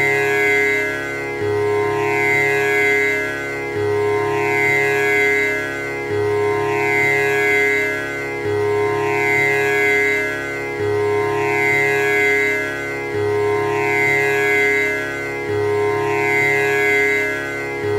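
Tanpura drone: its strings plucked in a steady repeating cycle, about one round every two and a third seconds, each pluck leaving a buzzing, shimmering sweep of overtones over a continuous tonic drone.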